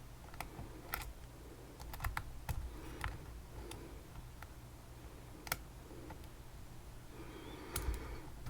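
Small, sharp metal clicks and taps, irregular and spaced out, from a vintage Ving lock being worked with lockpicking tools, over a faint low hum.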